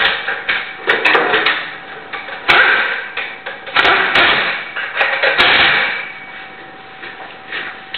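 A hand-held pneumatic air tool on the exhaust under a car's floor, running in short bursts of about half a second to a second, with sharp metal clanks and knocks in between.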